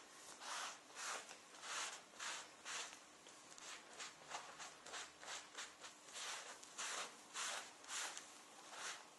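Cloth wiped back and forth over a leather jacket sleeve with alcohol cleaner, a faint rhythmic swishing of about two strokes a second, as the leather is prepped for colourant.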